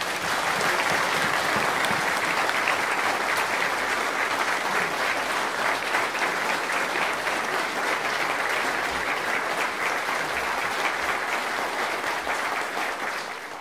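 Large audience applauding, a steady dense clapping that holds at an even level throughout and dies away at the very end.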